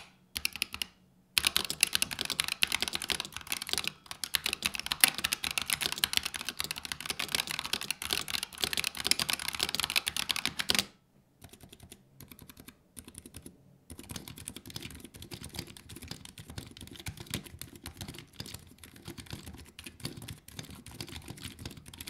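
Fast typing on Razer Red Optical linear keyboard switches. Gen 1 switches on a Huntsman TE come first, loud and bright with the pinging typical of these undampened switches. After a short pause about halfway through comes quieter typing on Gen 2 switches, which are silicone-dampened and lubed.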